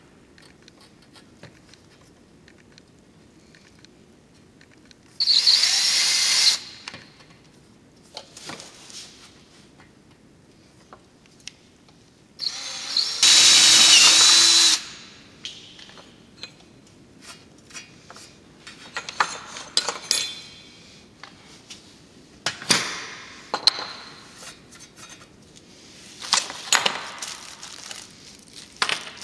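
Cordless drill boring into a solar panel's aluminum frame in two short runs, the first about a second long and the second about two seconds and louder. After them come scattered clicks and knocks of tools and hardware being handled.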